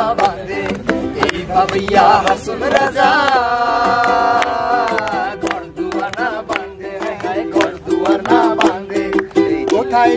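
A ukulele strummed in a quick, steady rhythm, with a man singing a melody over it. About three seconds in he holds one long note for a couple of seconds.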